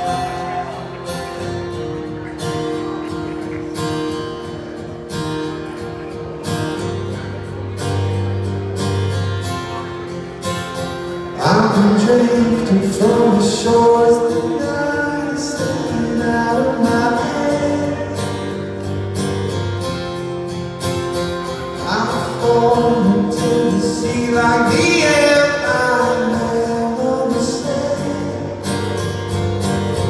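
Live solo acoustic guitar and male vocal. The guitar plays alone at first, and the voice comes in after about eleven seconds.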